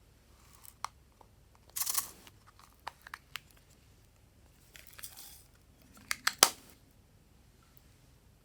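Slime being mixed and squeezed by hand: scattered sticky clicks and pops of trapped air, with two short squelches about two and five seconds in and the loudest cluster of pops about six seconds in.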